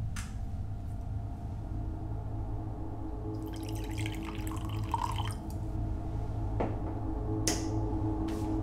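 Whisky poured from a bottle into a cut-crystal tumbler for about two seconds midway, trickling and splashing into the glass. Then a couple of short knocks as the bottle is set down on the countertop, over a steady low hum.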